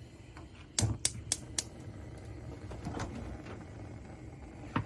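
Sharp clicks or taps from kitchen items being handled: four in quick succession about a second in, and one more near the end.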